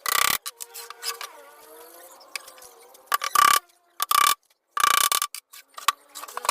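Mechanical tool noise from cabinet assembly: four short, loud bursts of about a third to half a second each, one at the start and three close together in the second half.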